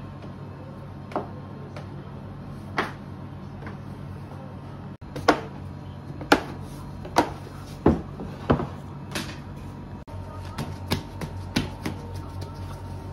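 Hollow knocks and taps of a plastic proofing tub and plastic dough scraper against a work table as risen bread dough is tipped out and scraped free, the loudest two knocks about five and six seconds in and a quick run of lighter taps near the end. A steady low hum runs underneath.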